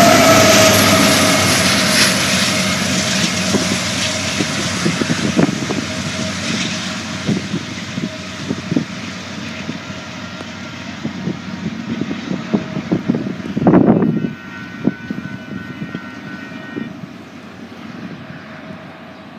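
Union Pacific diesel locomotive passing close by, its engine tone dropping in pitch, then the empty coal train's rumble and wheel clicks over the rail joints fading steadily as it moves away. A short loud burst of noise about two-thirds of the way through.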